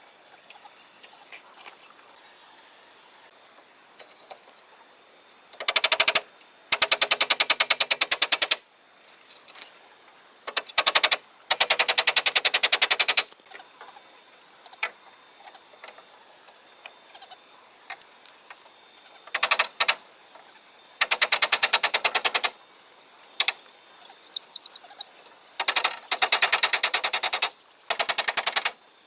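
Rapid mechanical hammering in short bursts: about eight bursts of very fast, even impacts, each lasting one to two seconds, mostly in pairs with quiet gaps between them.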